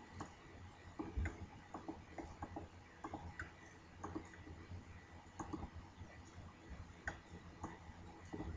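Computer mouse clicking: short single clicks, unevenly spaced, about two a second.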